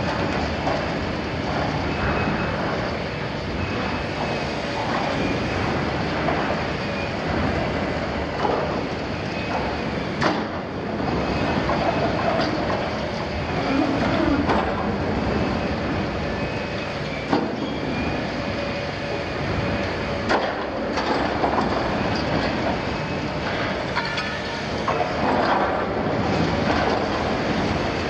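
Liebherr 974 demolition excavator tearing into a steel oil-tank wall: the diesel engine and hydraulics running under load, with steel plate grinding and squealing as it is torn. A few sharp metallic knocks stand out, about ten, seventeen and twenty seconds in.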